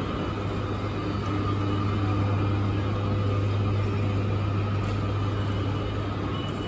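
Railway station concourse ambience: a steady low hum under a constant wash of background noise.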